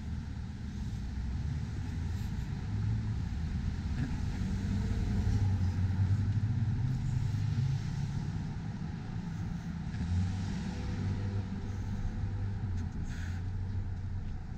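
Road traffic: car engines running as vehicles pass on the street, a low hum that swells about halfway through and again a few seconds later.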